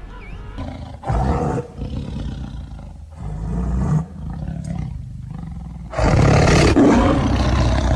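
A large animal roaring three times, the last roar the longest and loudest.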